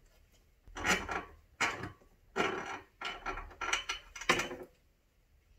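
Socket wrench with a Torx bit working the tight ignition-barrel bolts loose, six short scratchy ratcheting strokes in quick succession.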